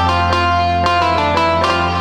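A Yamaha arranger keyboard playing a melody on a plucked-string Indian voice, a new note about every third to half second over a held low bass drone.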